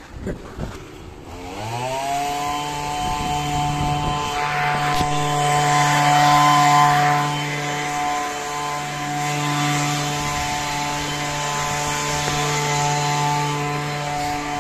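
Small two-stroke petrol engine of a handheld garden power tool revving up from low about one and a half seconds in, then running steadily at full throttle. A hissing cutting noise joins it between about four and seven seconds in, the loudest part.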